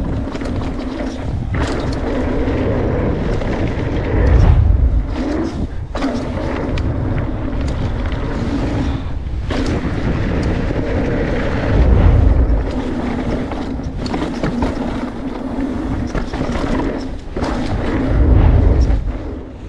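Mountain-bike riding noise on an action camera: rushing wind and tyres rattling over a dirt trail, with heavier low rumbles three times and a few brief breaks.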